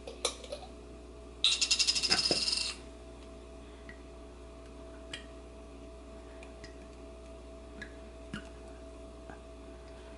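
A bottle of General Tso's sauce being opened and poured. A quick run of rapid clicks lasting about a second comes first, like a screw cap being twisted. Then come a few faint ticks as the thick sauce is poured into a bowl.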